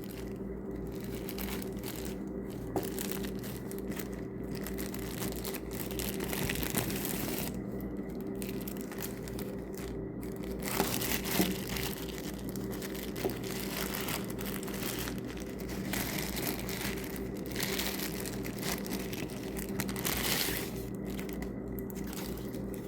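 Packaging being handled and unwrapped by hand, crinkling and rustling on and off, over a steady low electrical hum.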